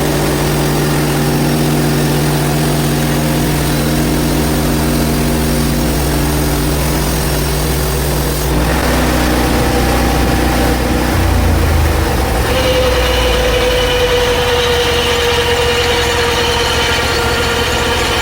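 Engine of a Hud-Son portable bandsaw mill running steadily. Its tone shifts about eight and a half seconds in, and a higher steady whine joins about twelve seconds in.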